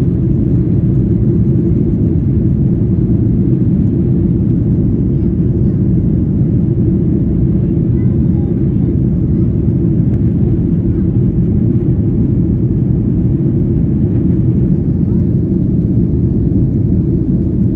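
Steady low rumble of a Boeing 737-800's engines and airflow heard inside the passenger cabin during the climb after takeoff.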